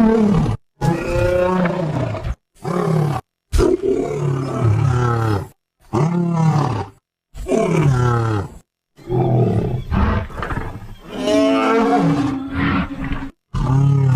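Protoceratops dinosaur sound effects: a series of about nine made-up growling roars, many falling in pitch. Each call lasts under about two seconds and is cut off abruptly into a moment of silence before the next one.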